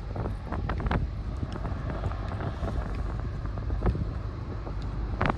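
Wind buffeting the microphone: a steady low rumble, with short sharp crackles now and then.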